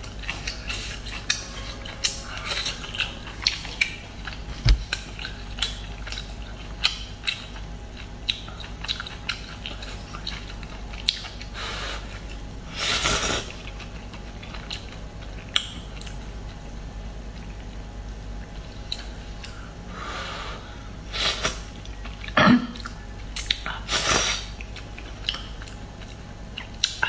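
Close-up eating sounds: wet chewing of steamed scallop meat with many small sharp mouth clicks and smacks, and a slurp of glass noodles about halfway through, with a few more short slurping sounds later on.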